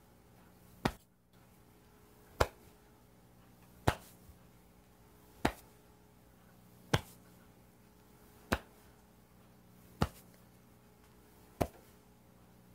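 Hands slapping the shoulder and lower back in time with a swinging-arm qigong movement: a sharp pat about every one and a half seconds, eight in all, over a faint steady hum.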